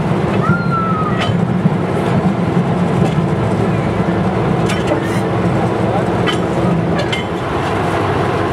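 Small diesel locomotive of a bush tramway running slowly along the track, its engine a steady low drone under the rattle of the train, with irregular sharp clicks and knocks from the wheels and couplings. The engine eases off a little near the end as the train draws into a station.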